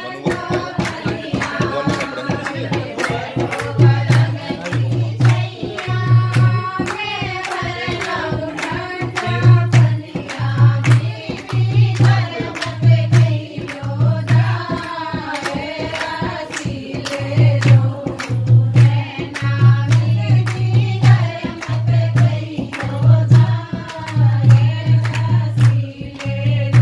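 Music: singing over a steady, regular drum beat with sharp percussive strikes.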